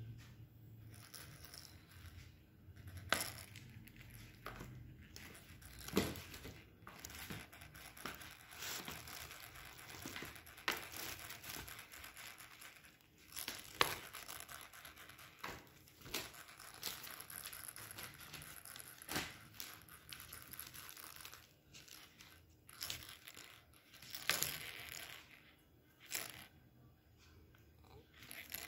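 Plastic wrapping and cardboard crinkling and rustling irregularly under a cat's paws as it bats at a dangling string toy, with sharp taps every few seconds.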